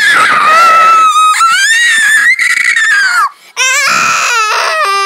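A child's loud, high-pitched pretend crying, voicing a doll that is crying: one long wavering wail, a short break about three and a half seconds in, then a second wail falling in pitch.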